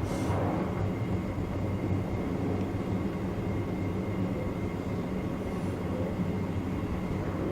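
Chichibu Railway electric train running at speed, heard from the front of the train: a steady low hum of motors and wheels on rail with a faint steady high tone. There is a short hiss right at the start.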